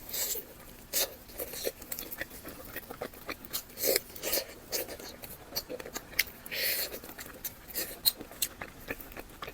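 Close-miked handling of food and its packaging: scattered small clicks, taps and short rustles, with a longer rustle about two-thirds of the way through.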